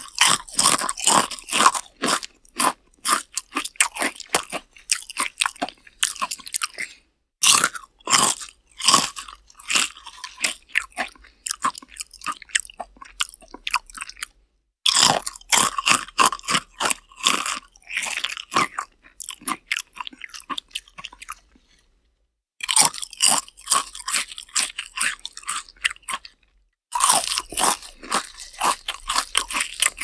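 A person eating, heard close up: biting and chewing with quick runs of crunching that last several seconds, broken by short pauses about four times.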